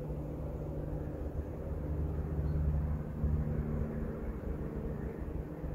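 A distant engine's steady low hum over a low rumble, swelling slightly in the middle.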